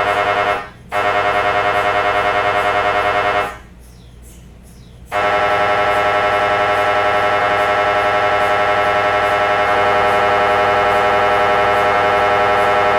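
MRI scanner's gradient coils sounding a loud, rapidly pulsing electronic buzz made of many stacked tones, as in a scan sequence. It cuts out briefly under a second in and again for about a second and a half near the middle, then resumes.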